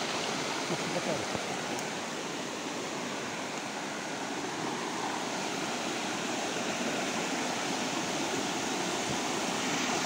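Rain-swollen stream running fast over bare rock slabs: a steady rush of water with foamy white-water churning.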